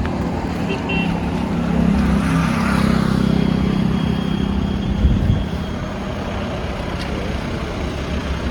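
Highway traffic going by: a heavy vehicle's engine hums as it passes in the first few seconds, with a short low knock about five seconds in, then steady road noise.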